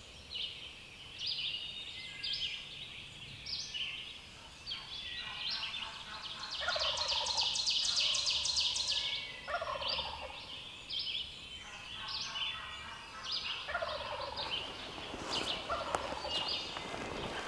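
Wild turkeys calling: a loud, rapid, stuttering call about seven seconds in that lasts about two seconds, followed by shorter calls of the same kind, over many short high chirps of small birds.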